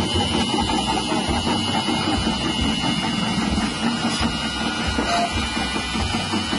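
Electric chip-slicing machine with a 180-watt motor running steadily while a tuber is pressed onto its spinning blade and cut into thin slices.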